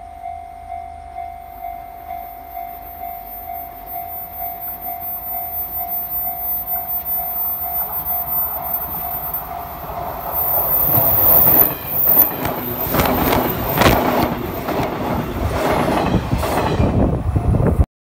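Level crossing warning bell ringing in a steady beat, a little under two strikes a second, as a JNR 583 series electric train approaches. From about eight seconds in, the train's running grows louder and it passes close by with a rhythmic clatter of wheels over rail joints that drowns the bell, then cuts off suddenly near the end.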